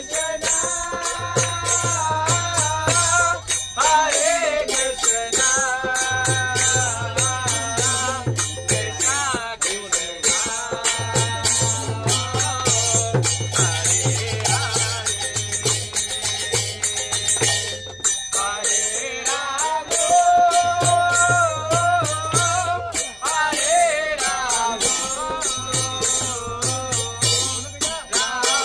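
Devotional kirtan: voices singing a chant with brass karatals (small hand cymbals) ringing in a steady rhythm and hands clapping along. A low beat comes and goes in stretches of a few seconds.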